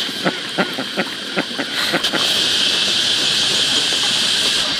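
A steady high hiss, with a quick run of light clicks or knocks, about eight in the first two seconds.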